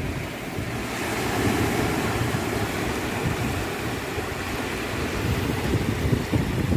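Sea surf washing against a rocky shore, a steady rushing noise with wind rumbling on the microphone.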